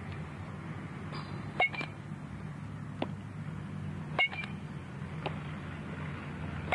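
Softball bat hitting softly tossed balls: three sharp hits about two and a half seconds apart, each with a short ringing ping, over a steady low background hum.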